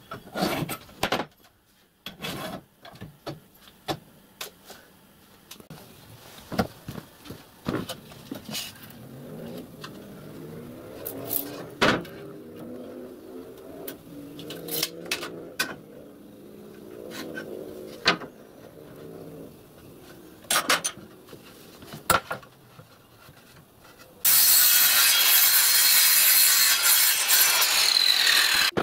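Clicks, knocks and handling of wood and tools, then a power mitre saw starts about 24 seconds in and cuts a pine board, running loud and steady before stopping abruptly near the end.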